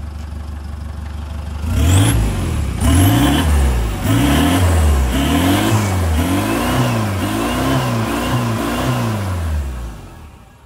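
Ford F-1000 XLT turbo diesel engine idling, then revved in a rapid series of throttle blips, each rev rising and falling in pitch. Near the end it drops back and the sound fades.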